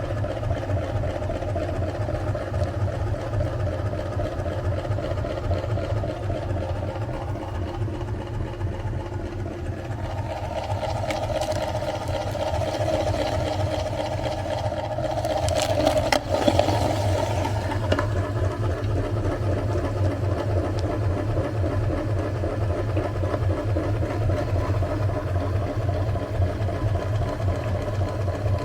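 Electric meat grinder motor running steadily. Partway through its sound changes as it works, with a short burst of sharp cracks and crackling about sixteen seconds in, then it settles back to an even hum.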